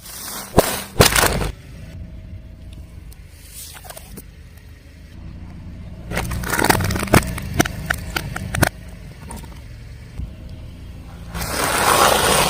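Car tyre rolling over and crushing brittle objects, over a low vehicle rumble. Sharp cracks come about half a second in, a run of cracks and crunches follows between about six and nine seconds, and a louder, longer crunch comes near the end.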